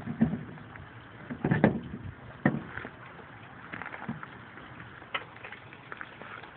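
Scattered knocks and clanks of work on a car wheel: the spare being fitted and its lug nuts and lug wrench handled, with the loudest knock about a second and a half in.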